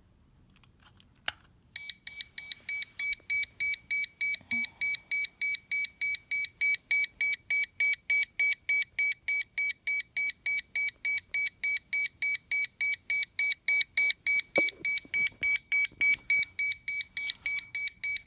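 PI 8710 personal smoke alarm sounding in test mode: after a click, a rapid train of short high-pitched beeps, about three a second, begins about two seconds in and keeps going.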